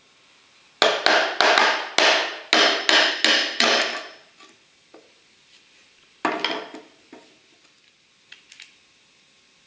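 Claw hammer striking a steel chisel to split a short holly stem: about eight sharp blows in three seconds, each with a short ring. One more knock comes about six seconds in, and a few faint clicks near the end.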